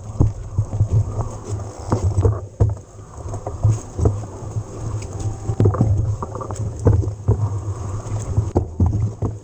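Riding noise from an electric mountain bike: irregular knocks and rattles of the bike jolting over rough ground, over a steady low rumble of wind on the camera microphone.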